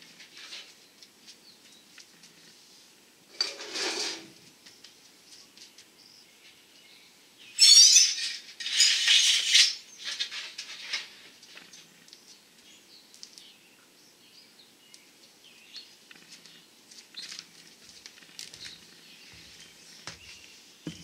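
Thin sheet-metal lid and heat shield of a homemade propane pool heater being handled and lifted off, rattling and scraping. It is loudest in a short burst about four seconds in and a longer one from about eight to ten seconds, with lighter clatter between.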